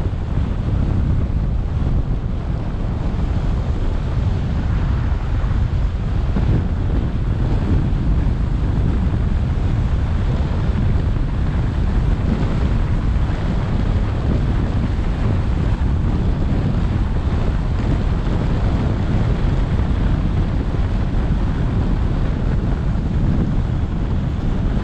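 Steady wind rushing over the microphone of a roof-mounted action camera on a moving car: a deep, even rush with no breaks.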